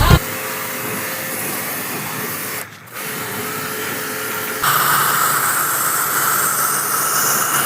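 Steady whirring of a small electric motor. It cuts out briefly about three seconds in, then comes back louder with a steady whine and a low hum.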